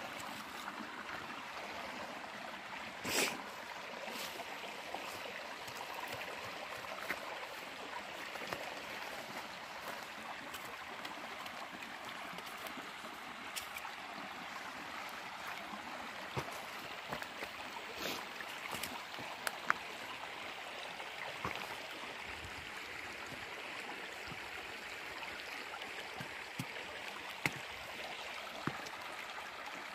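Mountain stream flowing steadily, a constant rush of running water, with a few sharp snaps or knocks scattered on top.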